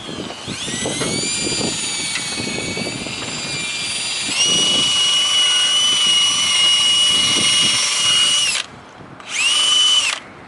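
Handheld power tool spinning a wheel on an improvised arbor. Its motor whine rises as it spins up, runs steadily, then steps up in pitch about four seconds in. It cuts off after about eight and a half seconds and gives one more short burst near the end.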